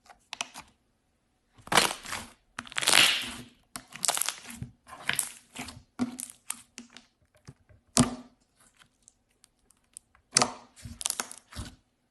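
Crisp crackling and crunching in irregular bursts, several of them sharp and loud: a brittle, crunchy material being broken up by hand.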